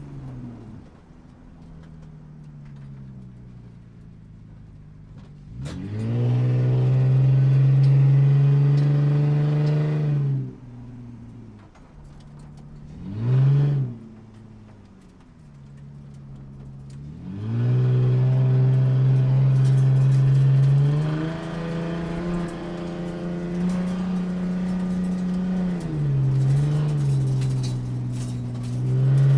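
Toy cars' built-in electronic engine sound effects: a recorded car engine revving up, holding and dropping away, played through a small toy speaker. There is one long rev, then a short blip, then a longer stretch of revving that rises and falls in pitch.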